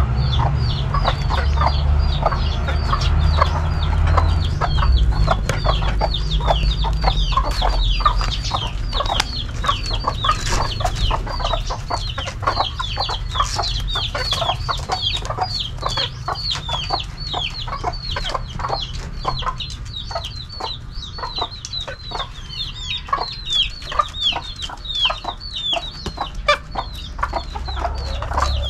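Chickens clucking and peeping, with short, high, falling peeps repeating several times a second throughout. A low rumble is heard in the first several seconds.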